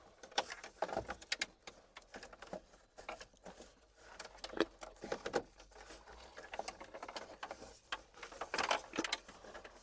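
RCA cables being pushed down behind plastic dash panels, making irregular rustles, scrapes and light clicks as they are handled and fed through.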